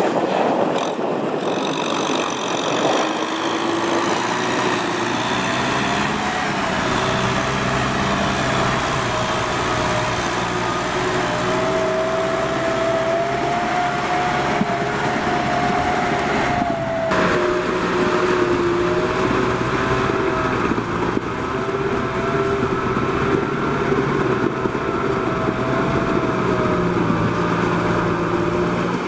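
Tractor diesel engine running steadily under load in deep mud, its pitch wavering slightly, with an abrupt change about two-thirds of the way through.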